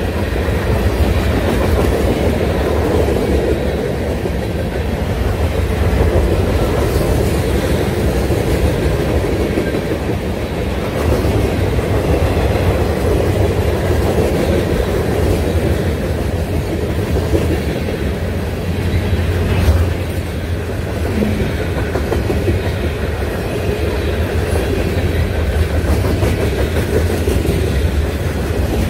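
Freight cars of a long train rolling past close by: a steady rumble and clickety-clack of steel wheels over the rails, with one sharper clank about twenty seconds in.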